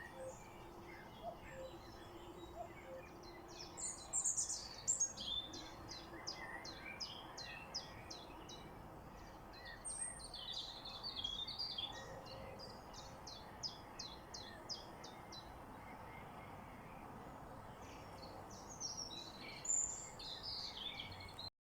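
Several songbirds singing and chirping together over a steady background hiss. Through the middle, one bird repeats a fast run of short high notes. The sound cuts off abruptly near the end.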